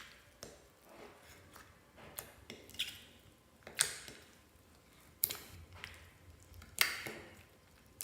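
Clear slime being squished and worked by hand: about six sharp, wet squelching pops spaced roughly a second apart, the loudest about halfway through and near the end.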